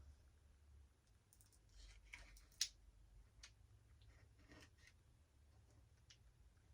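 Near silence with a few faint clicks and rustles of small parts being handled, and one sharper click about two and a half seconds in.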